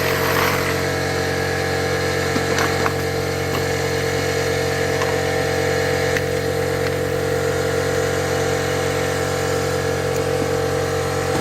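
Steady mechanical drone of workshop machinery, with a few light clicks about two and a half seconds in.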